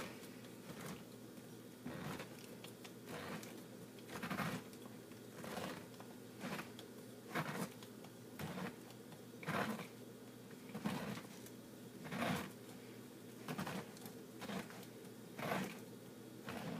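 Hand-twisted pineapple corer-slicer cutting down through a fresh pineapple: a crunchy, scraping rasp with each turn, about once a second, as the blade works through the fibrous, juicy flesh.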